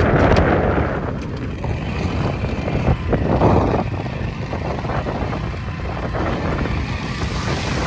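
Wind buffeting the microphone, with the low rumble of a moving two-wheeler underneath; gusts swell near the start and again about three seconds in.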